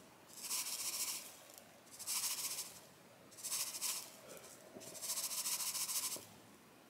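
Chia seeds shaken out of their packet into a bowl in four short pours, each a brief rattly hiss of tiny seeds.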